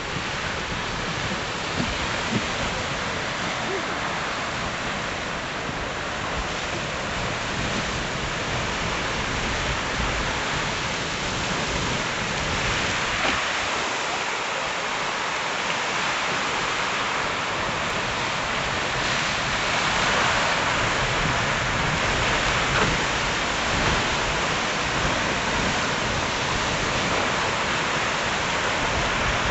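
Giant Geyser mid-eruption: a steady rushing hiss of its water column and steam, with water splashing and pouring across the sinter platform.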